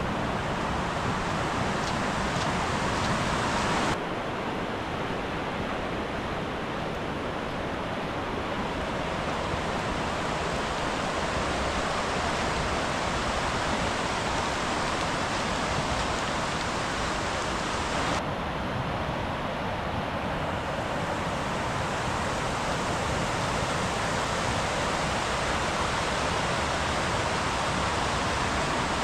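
Fast-flowing river in full spate rushing steadily. Its tone shifts suddenly about four seconds in and again about eighteen seconds in.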